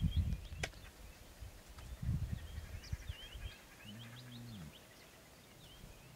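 Small birds chirping in the background, with bursts of low rumble near the start and about two seconds in. About four seconds in comes a short, low groan from a resting male lion as a cub jumps on him and wakes him.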